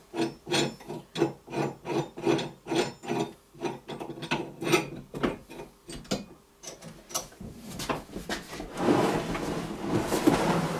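Bolts on a motorized towing sled's frame being tightened with a hand wrench: short strokes about three times a second for the first five seconds, then scattered knocks. A longer stretch of scraping and rubbing follows near the end.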